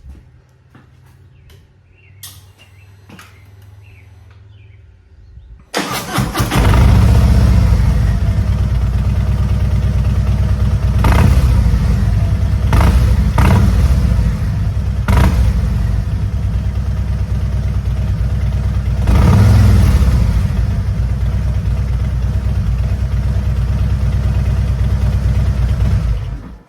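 Harley-Davidson Road Glide's Milwaukee-Eight 117 V-twin starting about six seconds in, idling and revved several times, then shut off just before the end. It breathes through one new Rinehart slip-on muffler and one stock muffler, and sounds much better than on stock pipes.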